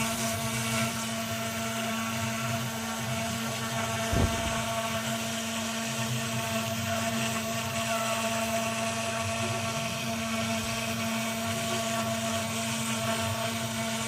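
CNC 6040 router engraving plywood: the 2.2 spindle runs at a steady high whine over the hiss of the bit cutting the wood. A single low knock comes about four seconds in.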